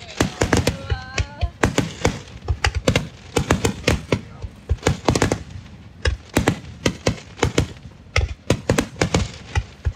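Aerial fireworks going off in a rapid, continuous barrage: a dense run of sharp bangs and crackles, several a second.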